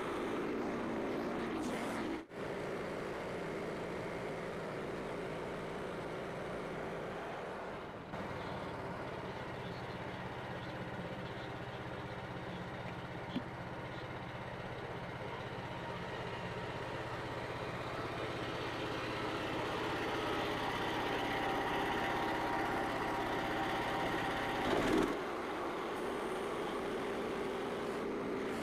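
Portable bandsaw sawmill running steadily under power, its small engine and band blade working through a large beech log. A short loud clunk comes near the end.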